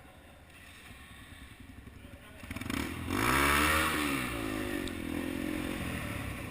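Dirt bike engine, quiet at first, then revving loudly about halfway through, its pitch rising and then falling, before running on at a steadier note.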